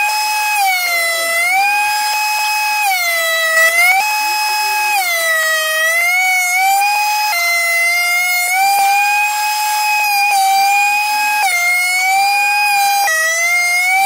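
DeWalt benchtop thickness planer running with a loud, high whine as spalted maple boards feed through it. The pitch sags several times, for a second or two each, as the cutterhead takes load, and rises again as the cut eases.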